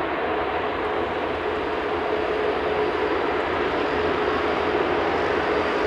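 Airbus A380-841's four Rolls-Royce Trent 970 turbofans running at low thrust as the airliner taxis: a steady jet hum with a steady mid-pitched tone, getting a little louder about two seconds in.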